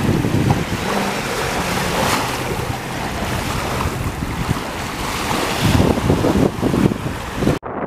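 Small waves washing onto a sandy shore, with wind gusting on the microphone. The sound cuts off abruptly near the end.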